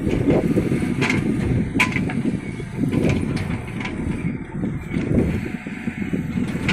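JCB 3DX backhoe loader's diesel engine running steadily while working, with several sharp metallic clanks, the clearest about one and two seconds in.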